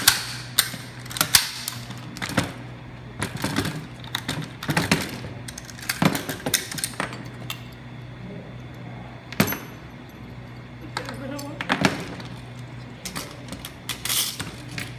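M16A1 rifle parts being handled at speed during a timed strip and reassembly: irregular metallic clicks, clacks and knocks as parts are pulled apart, slid and set down.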